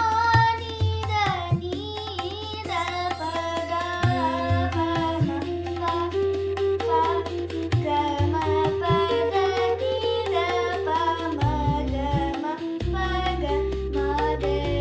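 Carnatic-style devotional music: a young female voice sings a wavering melodic line over a steady drone and tabla-like percussion.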